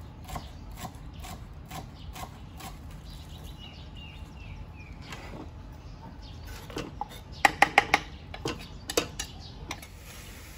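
Kitchen utensils against dishes during marinating: steady knocking about twice a second for the first few seconds, then a loud quick run of bright clinks about seven and a half seconds in and a few more clinks a second later.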